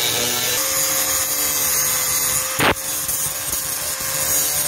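Electric angle grinder running at steady speed with its disc grinding into a steel bracket: a steady whine over a harsh grinding hiss. A short, loud thump comes a little over two and a half seconds in.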